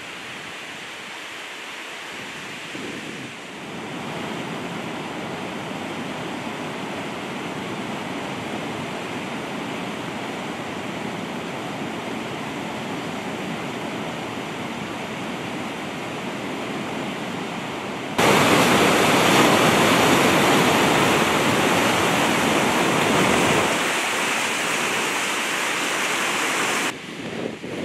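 Flash-flooded creek: fast, high brown water rushing through trees and over a debris-jammed bridge. A steady, loud rushing that gets clearly louder about two-thirds of the way in and drops back just before the end.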